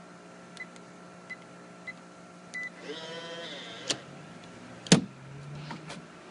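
Electronic keypad deadbolt lock: three short beeps as keys are pressed and a longer confirmation beep, then the lock's small motor whirs for about a second as it draws the bolt back. A click follows, then a loud knock, the loudest sound, and another faint click.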